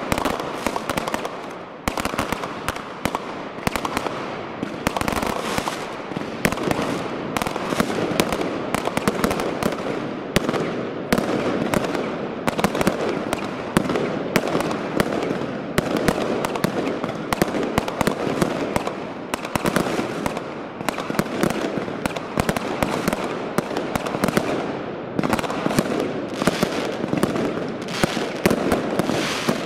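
Fireworks finale going off without pause: dense, overlapping bangs and crackling from aerial shells and comet effects, with a brief lull about two seconds in.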